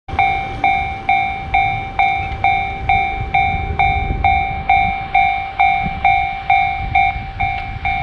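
Japanese railroad crossing's electronic warning bell sounding its 'kan-kan' from the loudspeaker on the signal post: a ringing ding struck about twice a second, each one fading before the next, over a low rumble.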